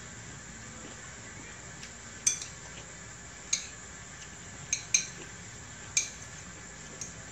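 Metal chopsticks and spoons clinking against ceramic plates as food is picked up: about five sharp clinks spread a second or so apart.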